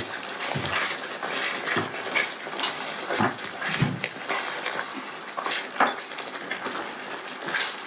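Spatula stirring and scraping thick chicken curry gravy in a metal kadhai: irregular scrapes and knocks of the utensil against the pan, with the wet sound of the gravy being turned.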